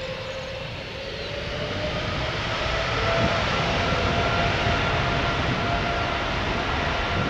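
Jet engines of a Boeing 777-300 airliner running, growing louder over the first few seconds, with a thin whine that rises slightly in pitch over the steady rush of engine noise.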